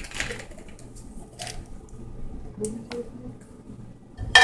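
Quiet clicks and handling of small items on a kitchen counter, then near the end a sharp, ringing clink of dishware.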